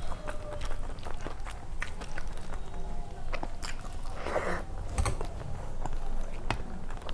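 Close-up mouth sounds of a person chewing a meal: wet smacking and many small sharp mouth clicks, with a brief louder rustle about four seconds in.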